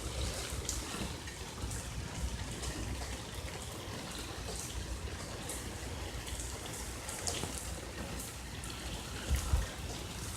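Steady rain falling during a thunderstorm, with many separate drops ticking. A short low thump sounds about nine and a half seconds in.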